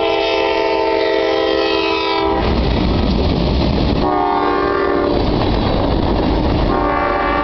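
The air horn of a Norfolk Southern GE C40-9W diesel locomotive blowing as the freight train passes at speed: a long blast, a shorter one a couple of seconds later, and another beginning near the end, the later blasts lower in pitch once the locomotives have gone by. Between the blasts the steel wheels of the passing boxcars rumble and clack on the rails.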